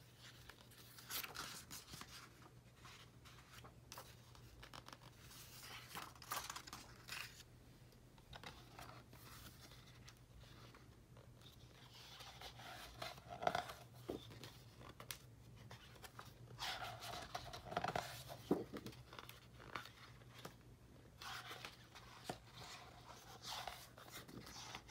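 Pages of a large scrapbook being turned by hand: the stiff paper rustles and slides in about five short bursts a few seconds apart.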